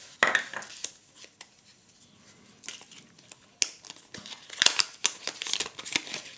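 A small folded paper leaflet from a Kinder Surprise egg being unfolded by hand: scattered crinkling and rustling, sparse at first and busiest near the end.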